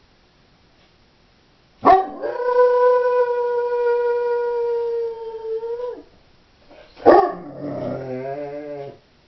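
A female Doberman howling while left home alone: one long, steady howl starting about two seconds in and lasting about four seconds, then after a short pause a second, shorter howl that wavers in pitch.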